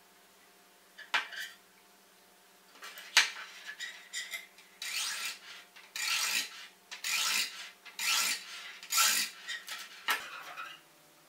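A tungsten-alloy pocket sharpener scraped along the steel blade of a Y-shaped vegetable peeler: about six scraping strokes, roughly a second apart, starting about five seconds in. Before them, a couple of sharp clicks as the peeler is handled.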